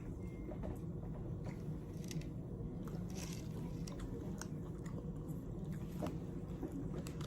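A person chewing and biting into food close to the microphone: soft crunches and wet mouth clicks scattered through, over a steady low hum.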